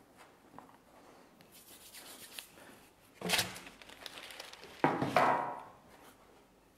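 Soft rubbing of hands working biscuit dough on a pastry board, then two louder bursts of rustling and clatter, about three and five seconds in, as a sheet of baking parchment is fetched and laid on the board.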